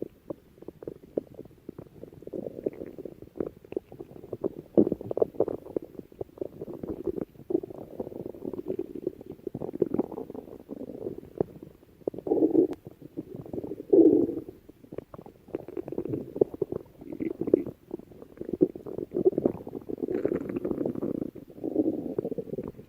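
Stomach growling: a continuous run of low rumbles and fine crackles, with two louder swells a little past halfway.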